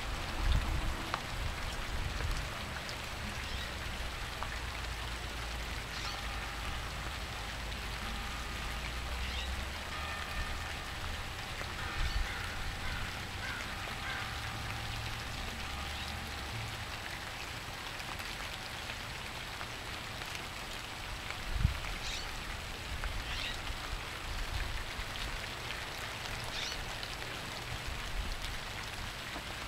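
Steady rain falling, with a few faint blackbird calls and a single thump about two-thirds of the way through.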